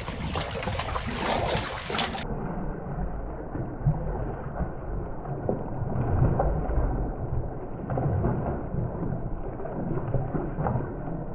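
Water splashing and churning at the surface as a school of fish thrashes in a feeding frenzy, over a steady low rumble.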